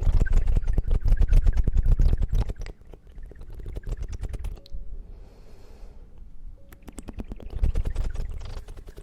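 Close-miked ASMR trigger sounds: rapid crackling and scratching right against the microphone, dense and bassy for the first couple of seconds, dropping to a soft hiss in the middle, then crackling again near the end.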